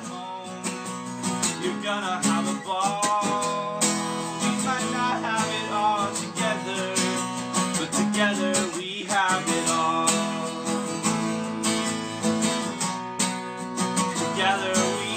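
Outro song with strummed acoustic guitar, playing continuously.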